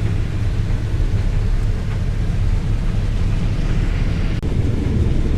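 Combine harvesting corn, heard from inside the cab: a steady, loud low drone of the engine and threshing machinery under load.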